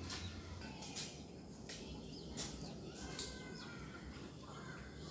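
Birds calling, with thin whistling calls from about three seconds in, over several short sharp knocks spaced roughly a second apart in the first three seconds.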